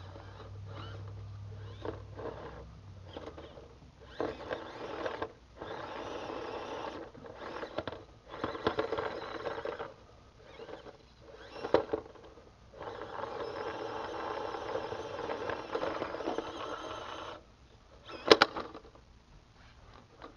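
Small electric motor and gearbox of a 1:18 scale RC crawler truck running in stop-start bursts as it climbs over logs, tyres scrabbling on the wood. A sharp knock about two-thirds of the way through and a louder one near the end as the truck strikes the logs.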